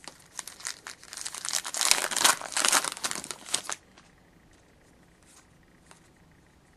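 Foil trading-card pack wrapper being torn open and crinkled by hand: a dense crackling that stops a little before four seconds in, followed by a few faint clicks.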